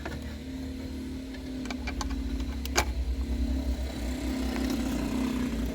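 Steady low hum of a car engine idling, with a few light clicks and one sharper click nearly three seconds in.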